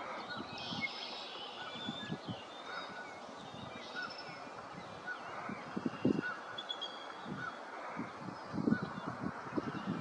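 Bald eagle calling at the nest: a run of short, high squawking notes repeated evenly about every half second or so, with more calls higher up early on. Low thumps come through about six seconds in and again near the end.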